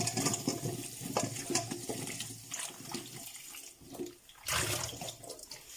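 Running tap water splashing over peeled potatoes as they are washed in a sink, with small knocks of the potatoes and a louder gush about four and a half seconds in.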